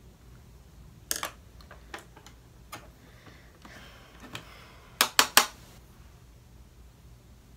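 Handling of a makeup brush and eyeshadow palette: scattered light clicks and knocks, then three quick, sharp taps about five seconds in.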